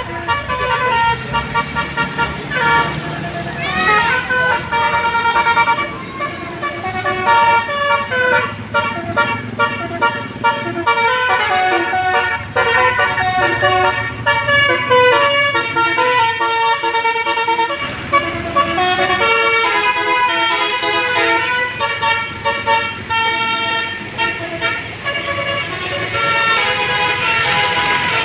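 Multi-tone telolet horn playing a quick melody of short, stepped musical notes, over and over, with a vehicle's engine rumbling underneath.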